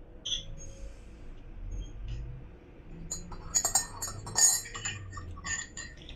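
A spoon stirring a drink in a cup, clinking repeatedly against its sides in the second half.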